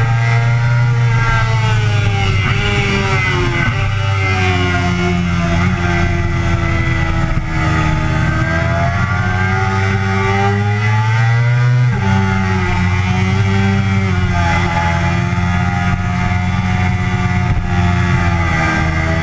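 Yamaha sportbike engine running hard on track, heard from on board over wind rush. The engine note falls about four seconds in, climbs steadily for several seconds, drops suddenly about twelve seconds in, then rises and eases off again.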